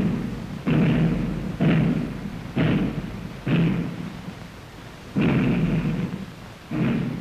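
Muffled snare drums beating a slow funeral march: single heavy strokes about once a second, each dying away, with a longer pause about halfway through.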